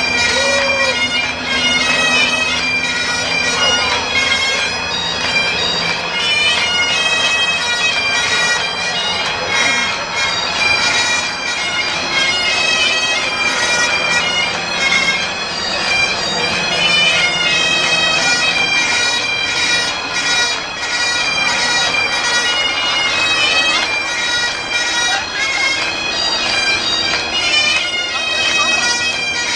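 Pipe band playing a hornpipe: Highland bagpipes play a quick tune over their steady held drones, with drums beating along.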